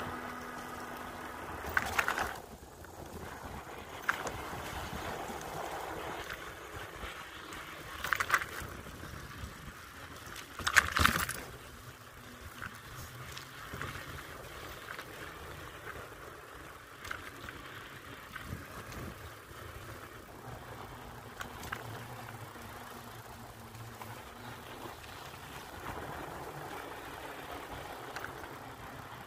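Bicycle rolling along the planks of a floating wooden dock: a steady rolling noise with occasional clunks and rattles as it crosses board joints. The loudest clunks come at about two, eight and eleven seconds in.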